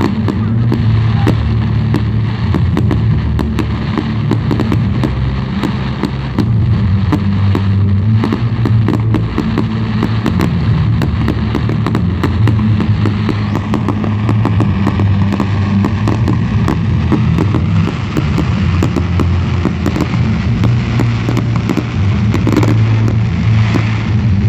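Fireworks display: a dense, unbroken run of bangs and crackles from aerial shells and fountains, over a steady low rumble.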